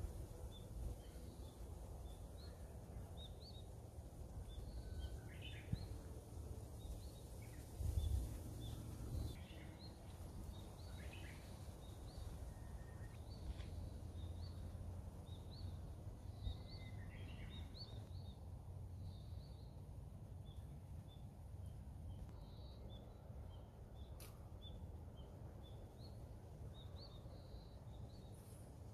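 Quiet outdoor ambience with many short, high bird chirps scattered throughout, over a steady low rumble. A brief louder bump comes about eight seconds in.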